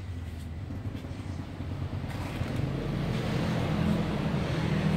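A motor engine running steadily, getting louder from about halfway through, with a rushing noise over it.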